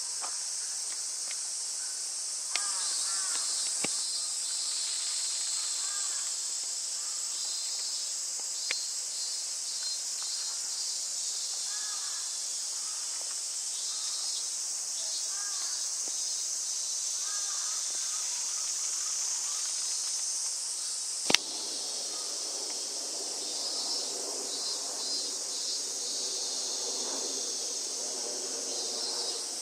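Steady high-pitched insect chorus, with birds giving repeated short falling chirps. A few sharp clicks occur, the loudest about two-thirds of the way through, after which the background changes.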